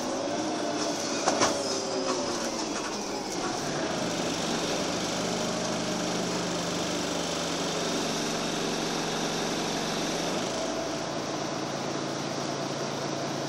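Inside a Karosa B941E articulated diesel city bus under way: engine and drivetrain hum with road noise in the cabin, the pitch falling at first and then holding a steady low drone. A short knock about a second in, and the drone drops to a lower note about ten seconds in.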